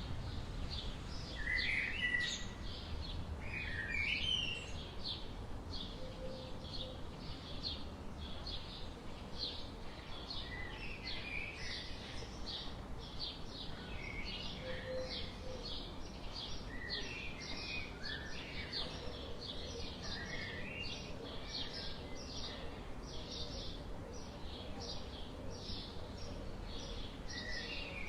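Birds calling outdoors: a steady run of short, high chirps about two to three a second, with scattered lower, warbling calls from other birds over a faint low background rumble.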